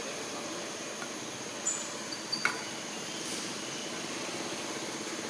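Steady high-pitched insect chorus, like crickets, with a few short clicks and brief chirps about two seconds in.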